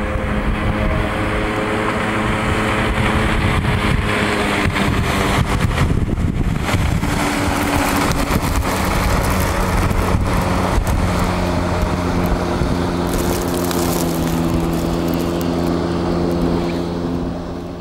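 Jet ski engine running as the craft speeds and turns across the water, its pitch shifting a few times, fading out near the end.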